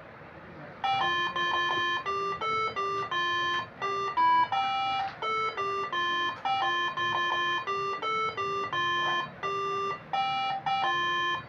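Moreno MS7 melodic air-horn module playing one of its built-in tunes: a run of short horn notes stepping up and down in pitch with brief gaps, the phrase played twice. It starts about a second in and stops just before the end.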